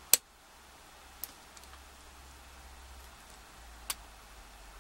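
A few sharp, isolated clicks from a lock pick working the pin stack inside a Kasp 19070X padlock during single pin picking: a loud click just after the start, then softer ticks about a second in and near the end.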